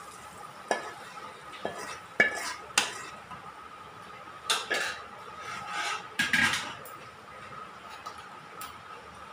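Metal ladle scraping and knocking against a metal kadai as the hot oil tempering is scraped out onto the dal. An irregular run of sharp clinks and short scrapes, busiest in the middle, thinning out toward the end.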